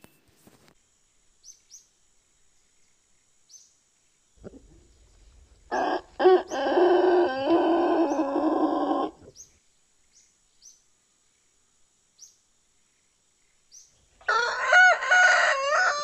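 Roosters crowing twice: a Silkie rooster gives one long crow about six seconds in, and a Mille Fleur d'Uccle bantam rooster crows near the end, its last note sliding down in pitch.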